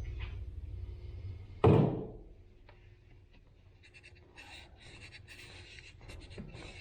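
One sharp, loud thunk about a second and a half in, with a short ringing tail, then faint, quick rustling and clicking, like tools being handled and rummaged through.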